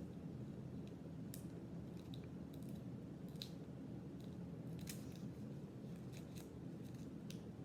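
Faint scattered snaps and light rustles of Pokémon trading cards being handled and flipped through, over a steady low hum.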